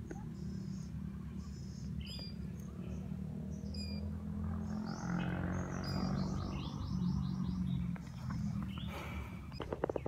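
Small wild birds chirping repeatedly, with a quick run of chirps about two thirds of the way through, over a steady low rumble. A few sharp clicks close together near the end.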